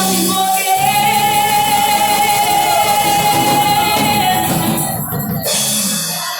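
Worship song by a percussion band with a singer holding one long note with vibrato over the drums. The music stops near the end.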